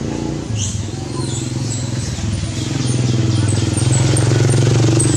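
A motor vehicle engine running nearby: a steady low hum that grows louder about halfway through. Small bird chirps sound above it.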